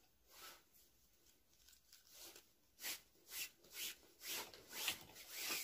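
Macrame cord pulled through knots and rubbing against itself: faint short swishes, sparse at first, then about six in quick succession in the second half.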